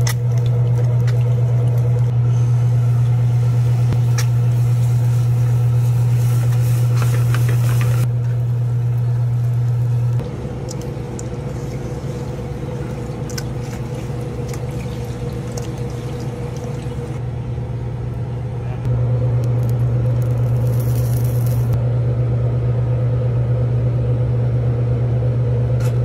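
Steady low hum of commercial kitchen equipment, such as a range hood fan, with short crackles of food sizzling in the first few seconds. The hum drops in level about ten seconds in and comes back up near nineteen seconds.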